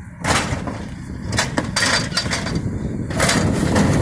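Plastic wheelie bin clattering as it is pushed onto a refuse truck's Geesinknorba Combi-split bin lifter, with sharp knocks just after the start and again about a second and a half in. From about three seconds the truck's engine and lifter hydraulics get louder as the lifter starts raising the bin.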